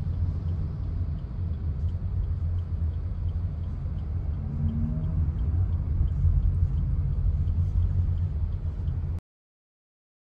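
A car on the move: a steady low rumble of engine and road noise. It cuts off suddenly about a second before the end.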